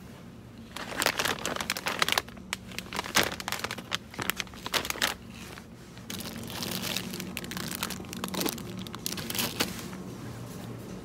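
Crinkling and crunching in quick irregular bursts for about four seconds, then softer continuous rustling with a few sharp crackles, over a steady low hum.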